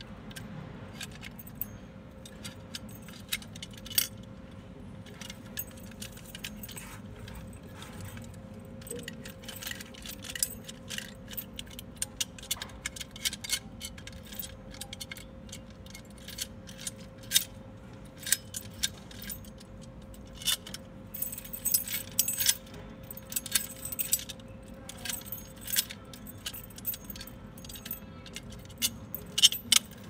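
A stainless steel mortise door lock worked by hand: many sharp, irregular metal clicks and clacks as the latch and bolt snap in and out, mixed with keys jingling on the ring hanging from the cylinder. The clicks come thicker in the second half.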